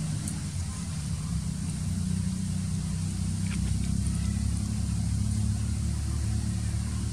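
Steady low motor rumble, like an engine idling, running evenly throughout.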